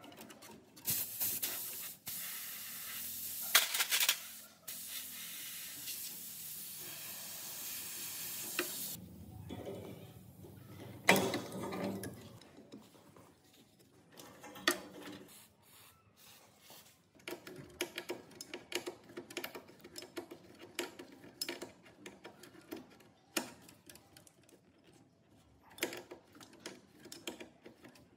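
A spray hissing steadily for about eight seconds, with a couple of short breaks. A sharp click follows, and later a run of light clicks and taps.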